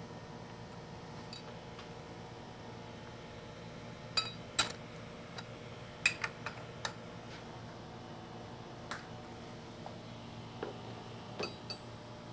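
Sharp metallic clinks and taps of metal parts or tools being handled at a lathe, clustered about four to seven seconds in and a few more near the end, over a steady low hum.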